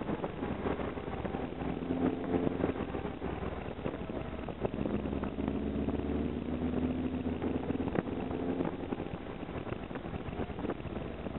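Engine of a Porsche 356 Speedster replica running on the move, its pitch dipping and rising gently with the throttle. Road and wind noise from the open cockpit, and a few brief knocks.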